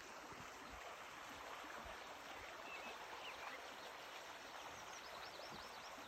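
Small creek running over stones, a steady rushing babble, with a few faint high chirps near the middle and near the end.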